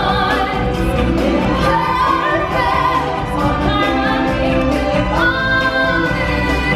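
Live stage-show music: singers and a chorus holding long, shifting notes over a strong bass.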